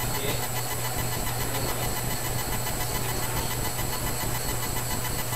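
Steady low hum under an even hiss, unchanging throughout, with no distinct events.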